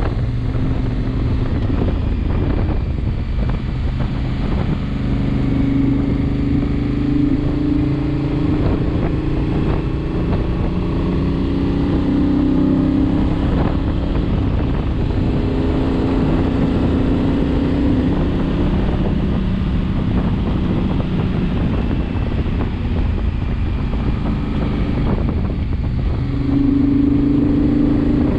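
Twin-cylinder adventure motorcycle engine under way, its note climbing through the revs and easing off several times, over a steady rushing noise.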